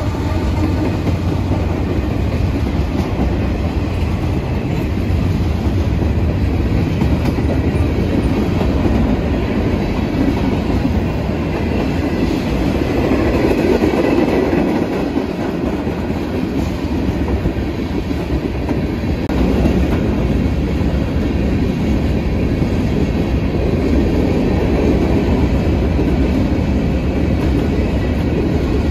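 Norfolk Southern manifest freight train rolling past at about 30 mph, a steady loud rumble of steel wheels on rail from the passing cars.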